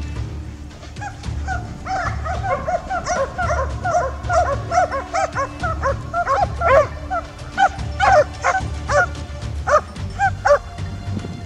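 A pack of hunting dogs baying and yelping at a wild boar, many barks overlapping in a continuous chorus. It starts about a second in and is thickest in the middle. Background music runs underneath.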